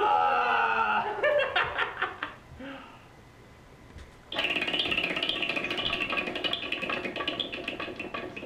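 A man's voice cries out briefly, then a spinning prize wheel's clicker rattles in a fast run of clicks, starting suddenly about four seconds in and slowing near the end.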